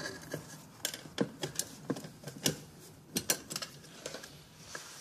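Irregular sharp clicks and taps of an electrical cable and its connector being worked by hand into a dishwasher's metal junction box.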